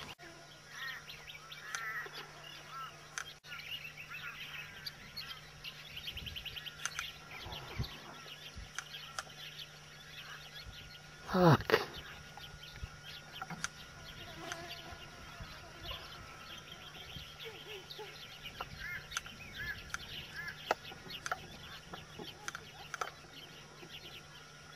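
Wild birds chirping and calling, short chirps every few seconds with a quick run of notes about a third of the way in. A voice exclaims once, loudly, near the middle.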